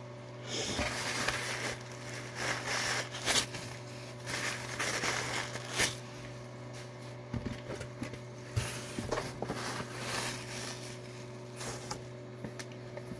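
Irregular bursts of rustling and crinkling as a soft blanket and packaging are handled close to the microphone, with a few sharper crackles, over a steady low hum.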